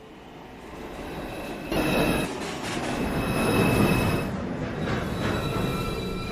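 A New York City subway train running into the station, growing louder, then jumping sharply in loudness almost two seconds in. Its steel wheels squeal on the rails with steady high tones; from about five seconds in, a new set of steady squeal tones sets in as it brakes.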